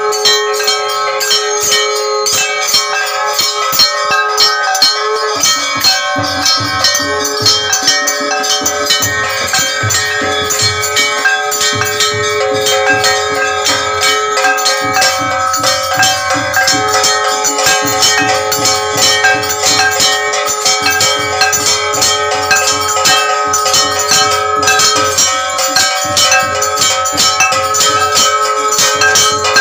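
Temple bells rung rapidly and continuously for an aarti, a dense clangour of strikes over steady ringing tones. A low, uneven thudding joins about five seconds in.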